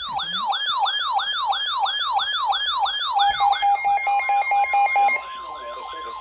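Weather alert radio alarm: an electronic yelp siren sweeping up and down about three times a second. About three seconds in, a rapid beeping joins it. About four seconds in, a steady tone starts near 1050 Hz, the pitch of the NOAA Weather Radio warning alarm tone. The yelp drops in level about five seconds in and keeps going more quietly.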